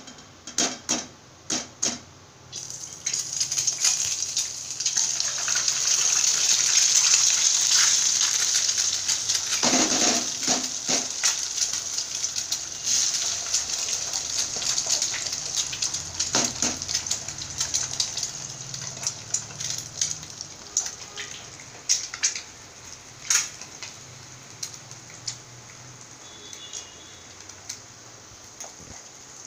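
Eggs sizzling and crackling in hot oil in a frying pan. The sizzle starts a few seconds in, swells, then slowly dies down. Sharp knocks come at the start and twice more, as eggs are cracked on the pan.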